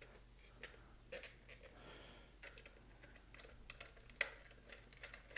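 Faint scattered clicks and ticks of a Phillips screwdriver working screws out of a hard plastic toy case, with one sharper click about four seconds in.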